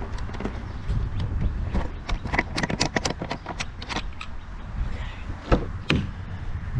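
A quick run of clicks and knocks over a low rumble as someone gets into a car, mostly between about two and four seconds in, with two more knocks near the end: car door and handling sounds.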